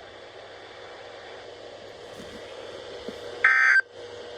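Steady radio hiss, then near the end one short buzzy burst of EAS/SAME digital data tones from a NOAA weather radio broadcast, the first of a run of identical bursts. Following the end of the weekly alarm test, this is the end-of-message signal.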